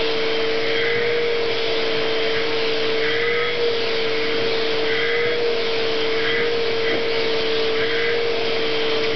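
Vacuum cleaner running steadily with a constant hum while it is used to groom a cat. The sound shifts slightly about every second and a half as the nozzle is passed over the cat's fur.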